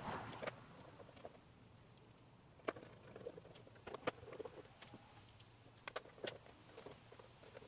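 Scattered light clicks and taps of plastic parts being handled and fitted back onto a car's side-mirror housing, a few sharp snaps among softer knocks.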